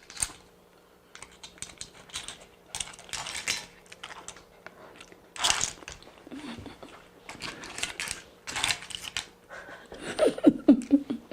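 Eating stir-fried clams: irregular clusters of small clicks of clam shells and chopsticks, with chewing. A short hum of the voice comes near the end.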